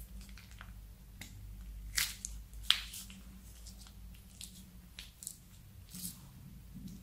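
Plastic piping bag crinkling as it is squeezed and glue squelches out into the dish: scattered soft crackles and clicks, with two sharper ones about two and two-and-a-half seconds in.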